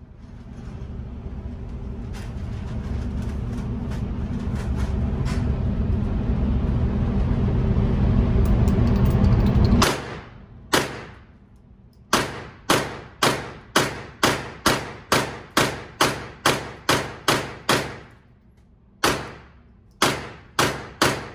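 A low rumble builds steadily for about ten seconds and stops abruptly. Then a Draco AK-pattern pistol fires semi-automatically at an indoor range: one shot, a fast string of about thirteen shots at roughly two a second, a short pause, and a few more, each shot echoing off the range walls.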